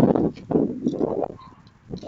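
Crunching footsteps in snow and slush, a rough series of steps that fades out about a second and a half in.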